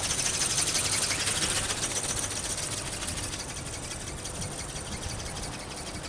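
Ornithopter's small brushless motor and plastic gear train driving its flapping wings: a high steady whine with a rapid, even clatter of wing beats, slowly fading. A low rumble of strong wind on the microphone runs underneath.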